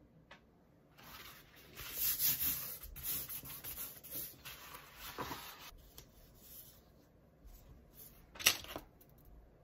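Crinkled paper rustling as a sheet is handled and smoothed flat by hand, with a short, sharper rustle near the end.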